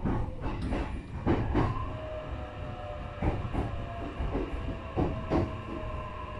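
E531 series electric commuter train heard from inside the car as it slows into a station: wheels clatter irregularly over rail joints and points over a low running rumble. From about two seconds in, an electric motor whine sets in and falls slowly in pitch as the train brakes.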